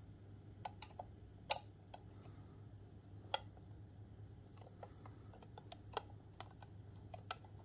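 Screwdriver turning a small screw in the rear panel of a metal-cased desktop DAC: faint, irregular clicks and ticks of metal on metal, spaced unevenly.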